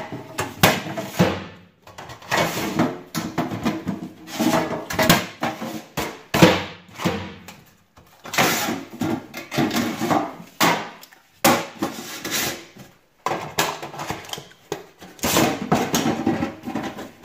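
Metal safe-deposit boxes being handled and slid out of their slots in a steel vault wall: a string of uneven metallic knocks, clanks and scrapes.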